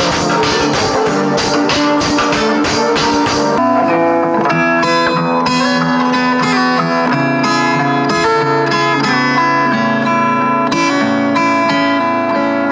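Background music: a track with a steady beat changes abruptly, about three and a half seconds in, to a plucked-string tune.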